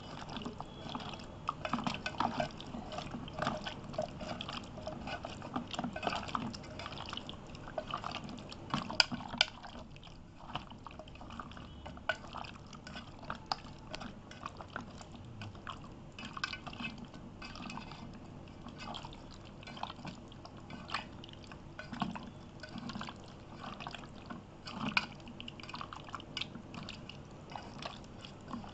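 Wet squelching of a hand kneading raw chicken pieces into a thick yogurt-and-spice marinade in a metal pot: an irregular run of small smacks and clicks.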